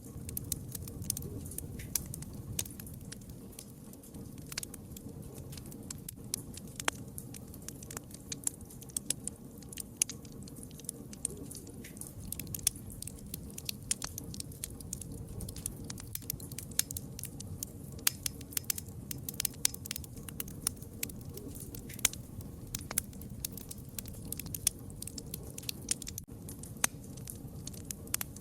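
Fire crackling, with many irregular sharp pops and snaps over a steady low rumble of the flames.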